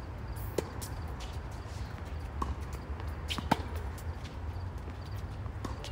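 Tennis rally on a hard court: sharp pops of the ball off the rackets and the court every second or two, the loudest about three and a half seconds in, over a steady low rumble.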